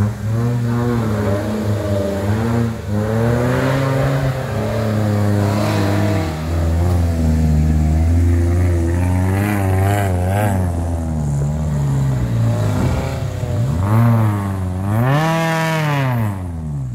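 Engine of a tubular-frame Suzuki Jimny Katana off-road buggy revving up and down over and over as it pulls out of a creek and up a muddy slope, with one big rev that rises and falls near the end.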